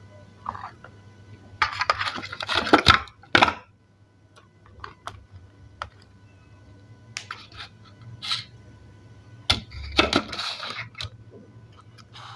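Close-miked eating of crunchy salad: two dense bursts of crunching, one near the start and one near the end, with scattered sharp clicks and taps between them.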